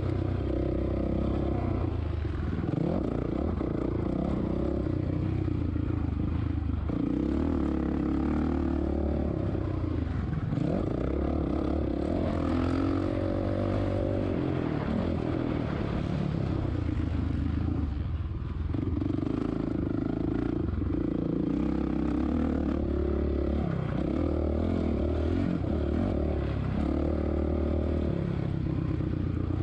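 2007 Suzuki RM-Z450's four-stroke single-cylinder engine revving up and easing off over and over as it is ridden hard around a motocross track, with a short drop in revs about two-thirds of the way through.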